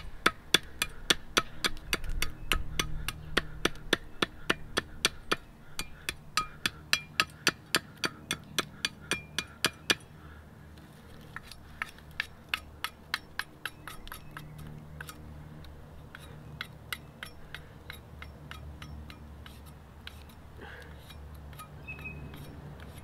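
A large fixed-blade knife chopping into the end of a wooden stick held on a stump, carving a point. There are quick sharp strikes, about three a second, for the first ten seconds, then fainter, more widely spaced strokes.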